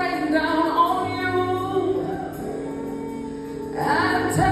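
Live gospel singing: a woman's voice through a microphone over held instrumental chords. Her voice drops out about halfway through, leaving only the sustained chords, and comes back near the end with a rising note.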